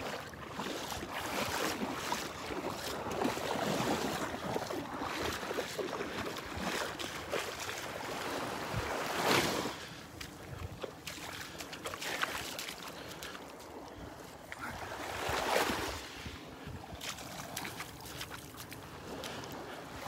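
Small, calm Gulf waves washing onto a sand beach, with light wind on the microphone; two louder washes come about nine and fifteen seconds in.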